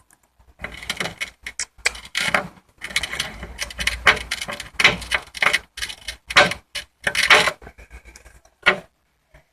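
Close handling noise: a dense, irregular run of clicks, taps and scrapes of small hard objects, lasting about seven seconds, then a single click near the end.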